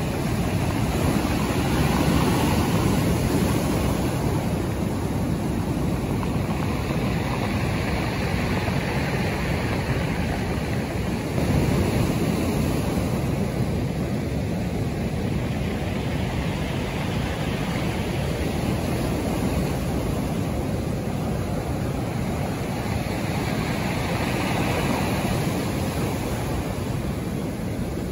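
Rough surf breaking onto a pebble beach: a loud, continuous rush of waves that swells and eases every several seconds, with a sudden surge about eleven seconds in. Wind buffets the microphone.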